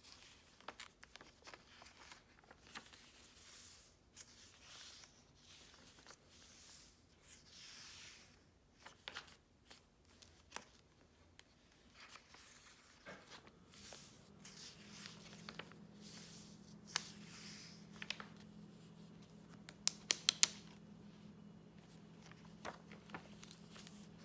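Paper journal pages being turned and handled by hand: soft swishes and rustles of paper, with a quick run of sharp clicks about twenty seconds in. A low steady hum comes in about halfway through.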